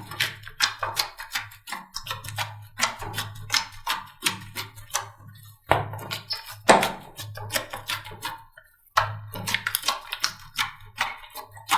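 Slime being squeezed and pressed by hand, giving dense wet crackles and pops, with short breaks about two, six and nine seconds in.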